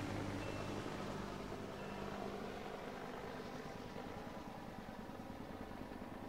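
Small two-bladed helicopter flying away, its engine and rotor hum fading steadily as it moves off.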